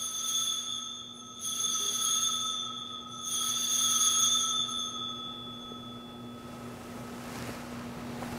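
Altar bell rung three times at the elevation of the host, each ring a clear, lingering tone that fades away over a few seconds.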